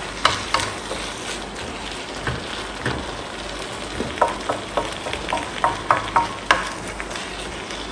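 Shredded chicken and onion in salsa sizzling in a nonstick frying pan as a wooden spoon stirs it, with irregular taps and scrapes of the spoon against the pan, busiest in the second half.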